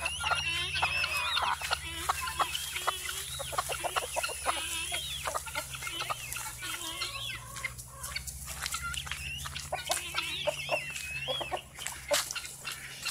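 A flock of chickens clucking and squawking as they run along together, many short wavering calls overlapping.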